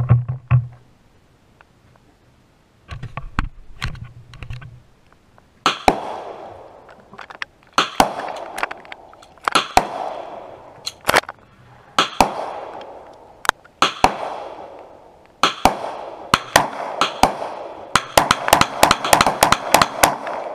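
Handgun shots, each crack trailing off in echo: single shots every second or two, then a quick run of shots near the end.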